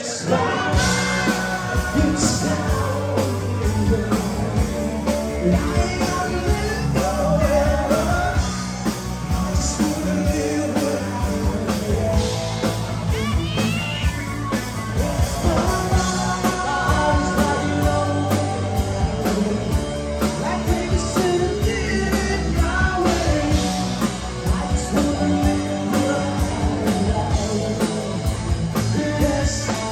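Rock band playing live, with a singer over guitar, bass and drums.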